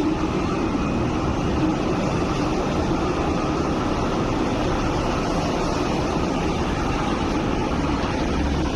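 A steady rumble of road traffic and a funicular tramcar rolling slowly across a steel girder bridge overhead, with no distinct knocks or tones.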